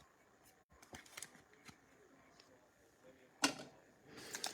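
Faint clicks and rustles of trading cards being handled, with one sharper snap about three and a half seconds in.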